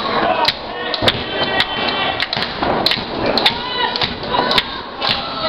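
A small audience shouting and yelling, mixed with sharp claps and thuds at irregular intervals.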